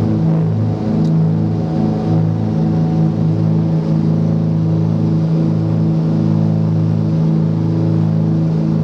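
Cessna 404 Titan's twin turbocharged Continental flat-six piston engines and propellers at takeoff power, heard from inside the cockpit as the aircraft lifts off and climbs: a loud, steady drone with a slow, uneven throb in its low tone.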